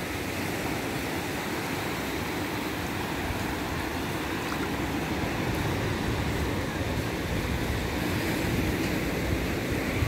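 Sea surf washing in over a sandy beach, a steady rushing noise.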